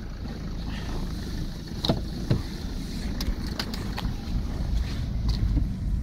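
Car engine idling in the cold, warming up, a steady low rumble with wind noise on the microphone. A few knocks and clicks, the two loudest about two seconds in, as someone climbs into the car.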